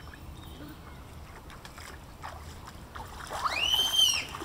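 A child's high-pitched squeal, rising, holding and then falling, about a second long near the end, over a faint outdoor background.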